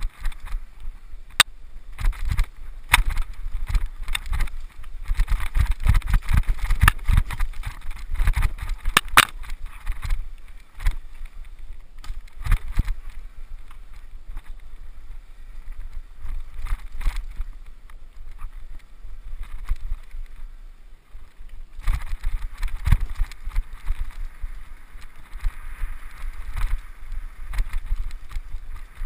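Mountain bike riding fast down a rough forest singletrack: a steady low rumble of tyres and wind with frequent sharp clatters and knocks as the bike rattles over roots and stones. It calms for a few seconds about two-thirds of the way through, then gives way to a steadier rolling hiss.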